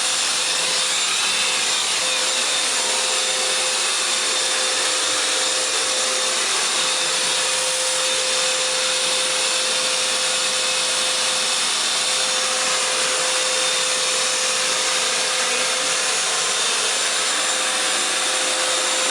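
Hoover FloorMate floor washer running steadily while washing the floor: the even rushing noise of its suction motor with a constant mid-pitched tone.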